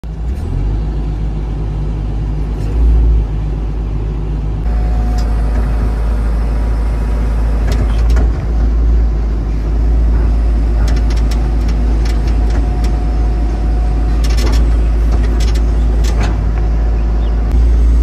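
Tata Hitachi 120 hydraulic excavator's diesel engine running steadily under load, heard from inside the cab as a deep, constant rumble. A steady whine comes and goes as the boom and bucket work, and there are knocks and scrapes as the bucket digs into the earth face, most of them between about 11 and 16 seconds in.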